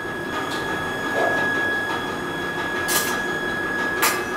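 Steady mechanical whir with a thin high whine, and two sharp clicks about three and four seconds in, as mustard oil is poured into an empty iron kadhai on a gas stove.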